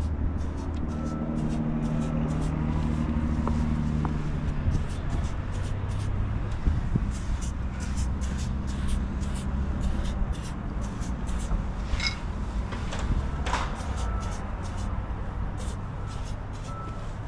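Low rumble of a motor vehicle engine running nearby, with a steady low hum that fades out about four to five seconds in, and faint clicks throughout.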